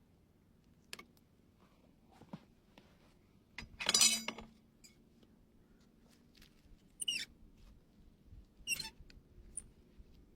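Hoof trimming: scattered small clicks, one loud scraping stroke about four seconds in, and two shorter squeaky scraping strokes near the end, typical of a hoof knife paring horn.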